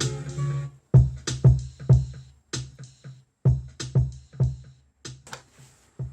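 Chopped sample slices triggered one by one from the pads of an Akai MPC Live: a looping sample stops under a second in, then short pitched hits with a strong low end follow in an uneven rhythm, growing quieter toward the end.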